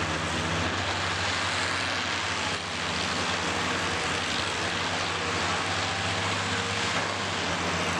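Engines of derby-modified combine harvesters running with a steady low drone, under a broad noisy wash of outdoor sound.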